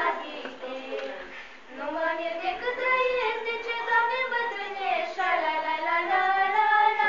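Young girls singing a song in long held notes that step up and down in pitch, with a brief break about a second and a half in.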